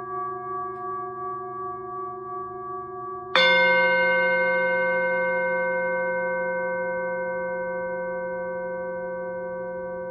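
Singing bowl struck once, a little over three seconds in, its several overtones ringing out together and slowly fading with a gentle waver; before the strike, the fading ring of an earlier strike pulses steadily.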